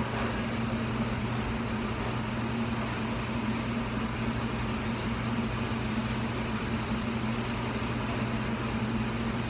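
A steady low hum with a hiss over it, unchanging throughout, like a motor-driven kitchen appliance running.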